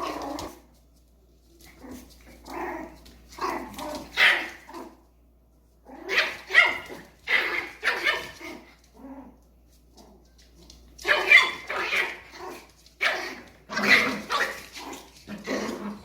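A dog barking in several bouts of quick repeated barks, with short pauses between bouts.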